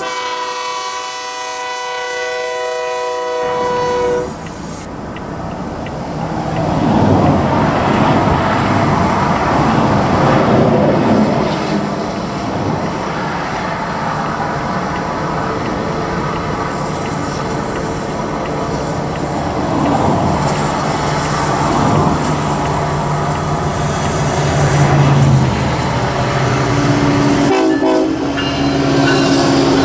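Background music for the first few seconds, then a freight train led by diesel-electric locomotives (an SD70AH, an AC4400CW and a C45AH) approaching and passing: the locomotive horn sounding, engines running and wheels rolling on the rails.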